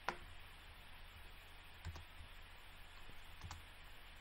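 Computer mouse clicking: one sharp click right at the start, then two fainter clicks about two and three and a half seconds in, over a faint steady low hum.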